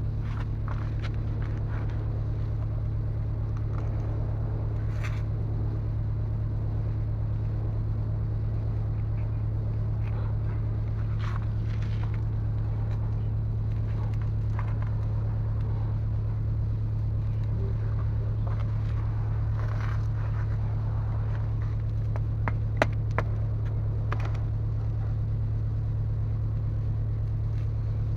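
Steady low drone of a running engine, with an even rapid pulsing under it. Faint scrapes come and go, and a couple of sharp clicks come about two-thirds of the way through.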